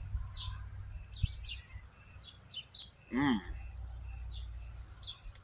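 Small birds chirping now and then over a low rumble of wind on the microphone. About three seconds in, a short hummed "mm" from the person chewing and tasting the food.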